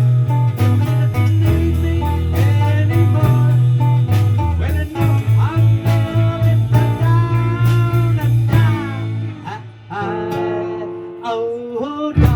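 Blues-style guitar music: plucked guitar notes with bent, sliding pitches over a steady bass line. The playing thins out briefly about ten seconds in, then the full band comes back.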